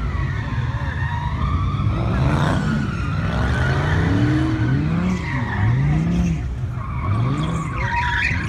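Dodge V8 engine revving up and down over and over, about once a second, while the tyres squeal in a long wavering skid as the car drifts and does a burnout.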